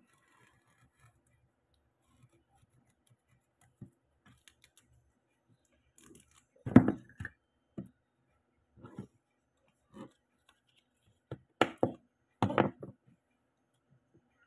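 A small knife tapping and scraping on a plastic cutting board while kaffir lime leaves are handled and their midribs cut out: a few scattered short knocks after a few quiet seconds, the loudest about seven seconds in and two more near the end.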